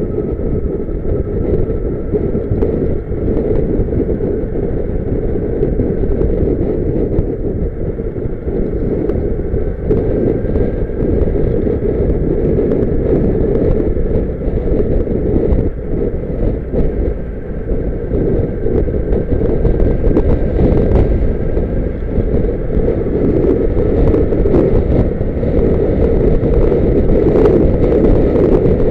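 A car on the move: steady engine and road noise, getting slightly louder over the second half.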